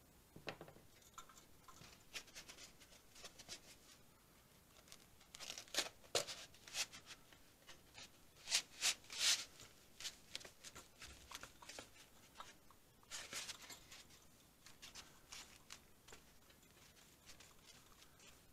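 Irregular rustling and scraping as a foam pool noodle is handled and pressed against a thin galvanized sheet-metal plate on a workbench, with the loudest scrapes about six and nine seconds in.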